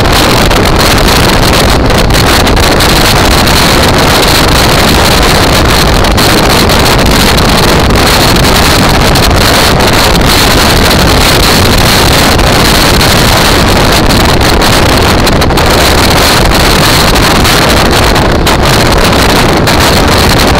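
Loud, steady wind noise buffeting the microphone of a camera on a moving motorcycle, with the motorcycle's engine running underneath at cruising speed.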